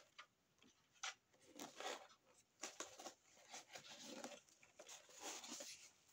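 Faint rustling, scraping and a few soft knocks as papers, an album and school supplies are pushed into a backpack and shuffled about inside it.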